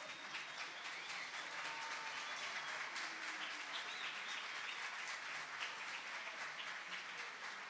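Audience applauding steadily, with a few faint voices in the crowd.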